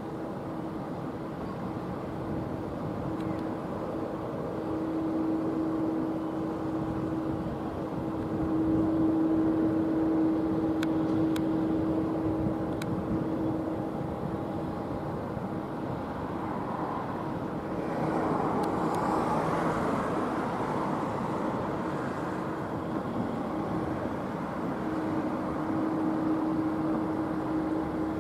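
Jet engines of a taxiing Boeing 747 freighter at taxi power: a steady drone with a constant low hum. It swells twice, with a broader rush of engine noise about 18 seconds in.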